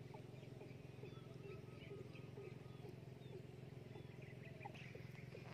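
Faint wetland ambience: many short, scattered chirping calls from small wild animals over a steady low hum.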